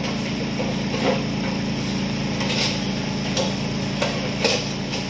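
A few light metal knocks and scrapes as a thin sheet-metal cylinder is shifted by hand inside a steel drum stove body, over a steady low hum.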